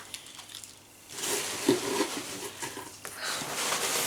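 Rustling and crinkling of gift wrapping and packaging as it is handled, starting about a second in, pausing briefly, then picking up again near the end.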